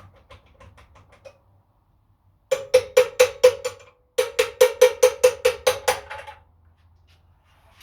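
Two runs of sharp metal-on-metal strikes with a ringing tone, about five a second, the first starting about two and a half seconds in and the second just after a short pause; faint quick ticks come before them.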